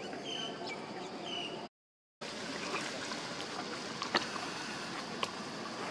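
Steady outdoor background noise, with two brief high chirps in the first second and a half. It cuts out for about half a second near the two-second mark, then carries on with a few faint clicks.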